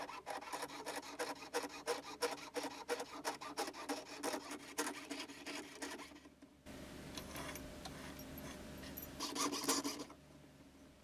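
Jeweler's saw cutting through a coil of 12-gauge fine silver wire, rapid back-and-forth rasping strokes that part it into jump rings. The sawing stops briefly about six seconds in, then goes on more faintly and gets louder again near the end.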